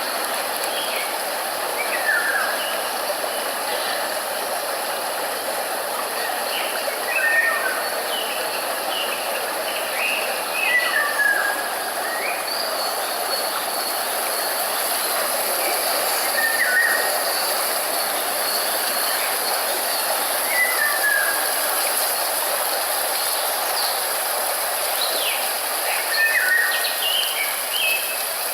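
Steady white-noise hiss with short, falling bird chirps laid over it every few seconds.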